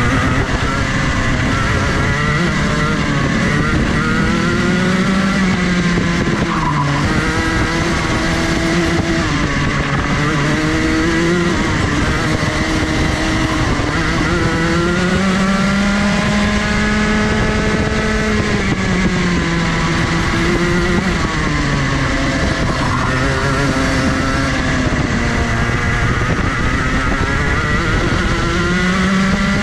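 Rotax 125 cc two-stroke racing kart engine heard onboard, at full throttle with its pitch climbing along the straights, then dropping off sharply under braking for the corners, several times over.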